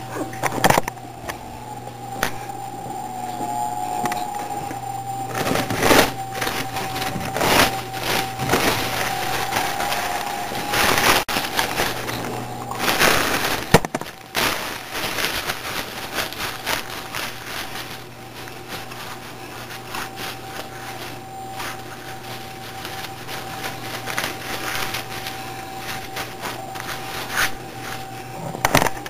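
Irregular crackling and knocking from a handheld camera being moved and handled, with a louder spell of rustling about two-thirds of the way through. Under it runs a steady hum.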